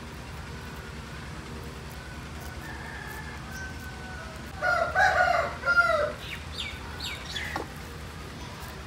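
A rooster crowing once, loudly, about halfway through, with fainter calls leading into it and a few trailing notes after.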